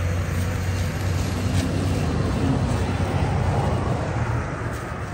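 Plastic bag rustling and crinkling as tacos are taken out of a plastic-lined, cloth-wrapped basket, over a steady low rumble.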